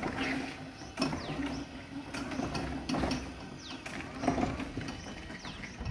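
Komatsu 48-volt DC electric forklift driving slowly over brick paving: a steady low hum from the drive motor and gears, with irregular rattles and knocks from the machine as it rolls.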